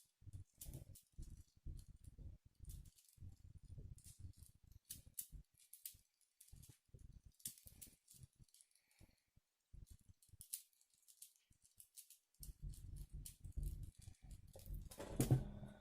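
Tiny 2 cm 3x3 Rubik's cube being turned fast in a speedsolve: quick, irregular plastic clicks of the layers snapping round. They pause briefly about eleven seconds in, and heavier handling sounds come near the end.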